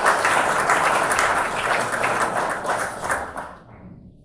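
Audience applauding, dense clapping that dies away about three and a half seconds in.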